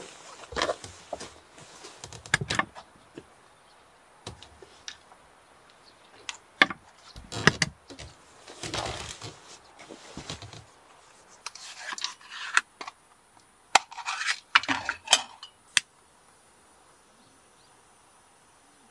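A run of clicks, light knocks and short rustles, as of small objects being handled and moved about, that stops about sixteen seconds in.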